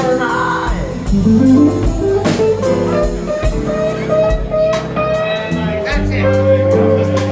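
A live band playing with electric guitar, keyboard and drums, with regular drum hits under held notes and one long sustained note in the middle.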